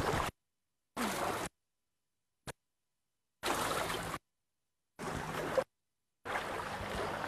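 Water splashing and running in a shallow river around bathing elephants. The audio cuts out to dead silence about five times, leaving only short fragments of the water sound.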